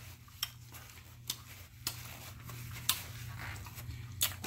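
A few faint, scattered clicks and light taps, about four or five over the few seconds, over a low steady hum.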